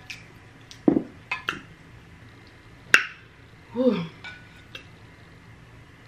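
Clinks and knocks of a metal insulated water bottle being handled as its cap is taken off and set down on the table: a few sharp knocks about one, one and a half and three seconds in, then a short falling squeak near four seconds.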